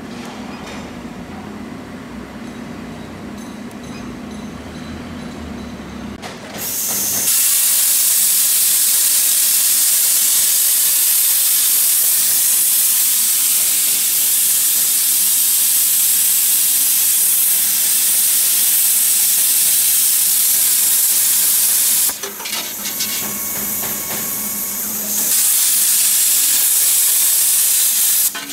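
CNC plasma torch cutting a metal pipe on a rotary chuck: a loud, steady hiss of the plasma arc starts about seven seconds in, after a lower machine hum. The hiss drops away for a few seconds near the end, then resumes and cuts off suddenly.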